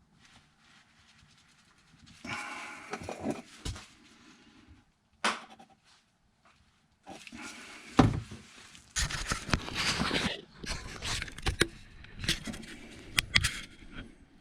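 Intermittent rustling, scraping and clattering of hands and tools working on sink plumbing, with a sharp knock about eight seconds in.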